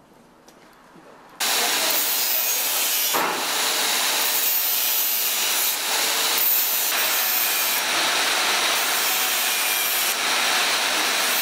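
Angle grinder working on sheet steel, starting abruptly just over a second in and then running steadily with a harsh, high grinding noise.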